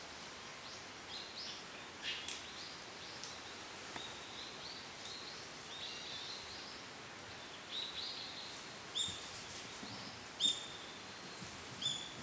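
Forest ambience: small birds giving short, high chirps again and again over a steady hiss, with a few louder calls in the second half.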